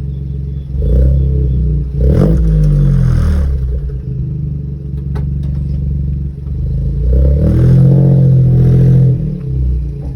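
Ford Focus 1.0 EcoBoost three-cylinder turbo engine running as the car pulls away, rising in pitch and loudness under acceleration twice, about a second in and again near the end, with a few light clicks between.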